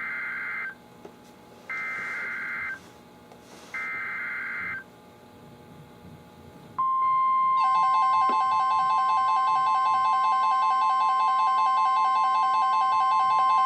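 NOAA Weather Radio EAS alert opening: three one-second bursts of buzzy SAME digital header data, then the steady 1050 Hz warning alarm tone starts about seven seconds in. Moments later a rapidly pulsing electronic alarm joins it, the weather radio receiver sounding its alert. This marks the start of a special marine warning.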